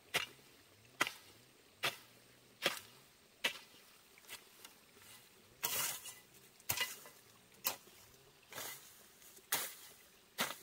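Sharp knocks at an even pace, about one a second, with a longer scraping sound about halfway through.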